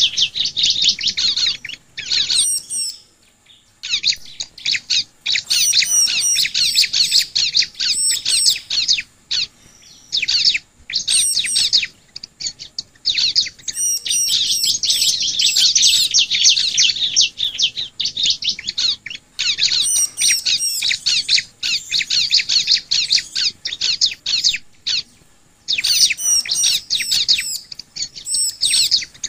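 Ciblek (bar-winged prinia) singing: long runs of rapid, high-pitched chirping broken by a few short pauses.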